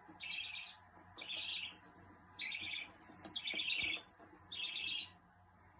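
Budgerigar calling: five short, harsh chirps, each about half a second long, about a second apart.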